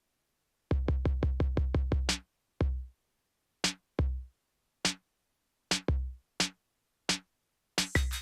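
Eurorack modular synthesizer kick-drum pattern sequenced by a Div Skip rhythm module. A fast roll of about ten kicks comes first, then sparse, irregular hits with gaps. Near the end a busier groove with clicks and short pitched notes joins in.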